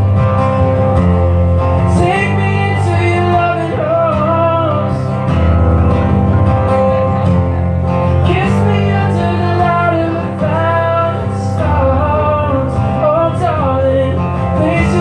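A man singing a slow ballad to his own strummed acoustic guitar, performed live through a PA.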